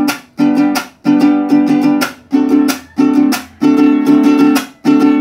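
Jarana huasteca strummed in a cumbia rhythm: short groups of quick chord strokes, each cut off sharply by the damping stroke (apagón), repeating about every 0.7 s.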